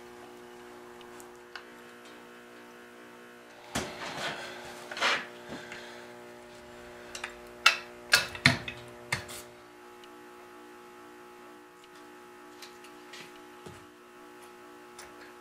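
Handling noise of the wooden stretchers and legs of a china cabinet leg assembly being fitted together: rubbing and scraping about four seconds in, then a quick run of sharp knocks and clicks about eight seconds in. A steady low hum runs underneath.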